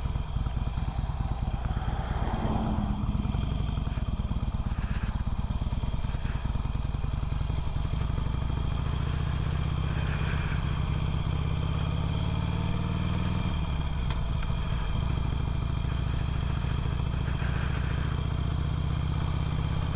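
Harley-Davidson Sportster 883's air-cooled V-twin running under way, heard from the rider's seat. Its pitch climbs steadily for several seconds past the middle, then falls away abruptly.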